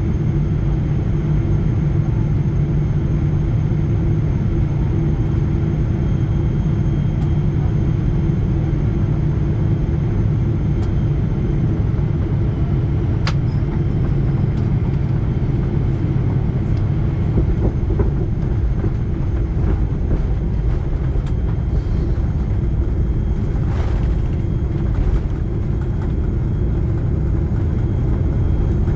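Steady low rumble inside the cabin of a Boeing 777-300ER, from its GE90 engines and the airframe, as it rolls along the runway and taxis after landing. A single sharp click about halfway through.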